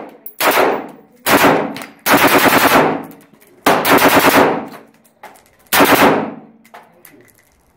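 Gunshots: single loud shots spaced a second or more apart, each trailing off, and about two seconds in a rapid burst of roughly ten shots in under a second.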